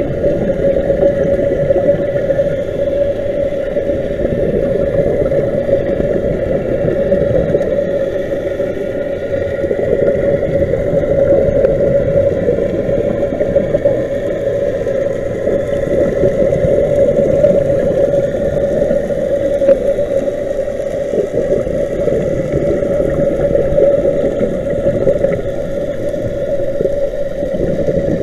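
Steady underwater rumble with a constant hum, muffled by an action camera's waterproof housing during a scuba dive.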